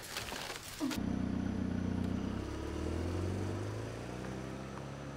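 A car's engine running steadily as the car drives off down the street, its low hum slowly fading. It comes in about a second in, after a short burst of noise.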